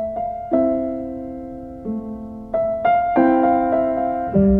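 Background music: a piano playing slow chords, each struck and left to fade before the next.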